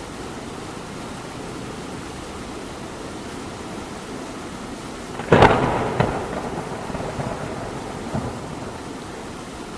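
Steady hiss of rain, with a sudden loud thunder crack about five seconds in, followed by a second crack and a rumble that fades over a few seconds.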